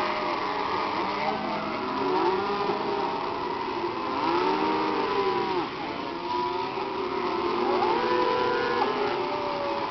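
A herd of cattle lowing, many drawn-out calls overlapping one another.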